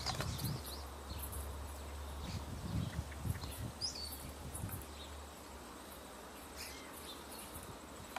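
Faint outdoor ambience with a few short bird chirps, the clearest about four seconds in, over a low steady hum that cuts off about five seconds in.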